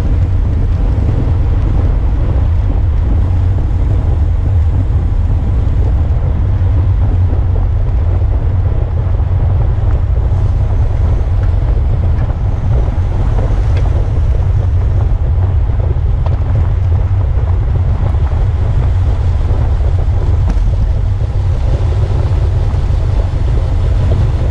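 Wind buffeting the microphone of a camera mounted on a racing road bike at speed: a steady, loud low rumble.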